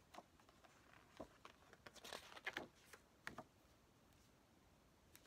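Quiet handling of a CD album's paper and plastic packaging: scattered light taps and rustles, busiest around two seconds in, then settling down.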